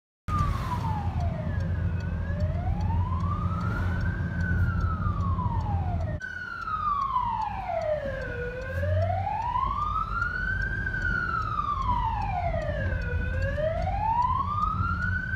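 Fire engine siren wailing, its pitch sliding slowly up and down about every five seconds, with a brief break about six seconds in. A steady low rumble of engine and road noise lies beneath it, heard from inside a following car.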